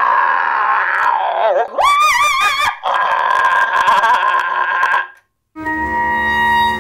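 A singer's voice through a megaphone making the dog's voice effect: a harsh, rasping cry that slides down in pitch, a wavering high howl with vibrato, then a steady rasping cry, stopping suddenly about five seconds in. Music starts near the end.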